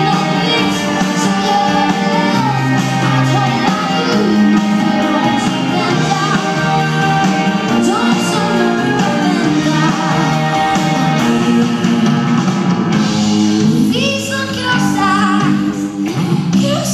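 Live band performing a pop song: a woman sings over drums, guitar, upright bass and keyboards, heard from the audience.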